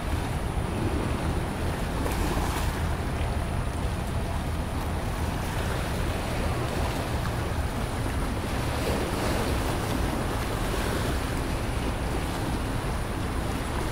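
Wind buffeting the Sony α6400's built-in microphone, which has no windscreen: loud, steady wind noise with a deep rumble that never lets up.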